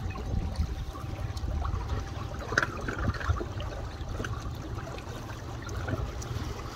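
Wind buffeting the microphone, with small wind-driven ripples lapping and trickling at the water's edge.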